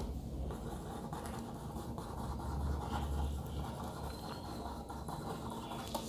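Pen scratching on paper in small, quick scribbled strokes while drawing leaves, faint over a low steady hum.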